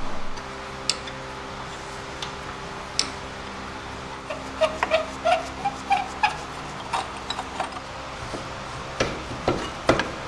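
Scattered light metallic clicks and taps of hand tools on a front disc brake caliper as it is unbolted and worked off the rotor, with a busier run of clicks and small squeaks about halfway through. A faint steady hum runs underneath.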